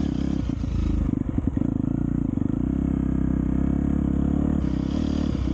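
Dirt bike engine running steadily, with an uneven, rougher stretch about one to two and a half seconds in.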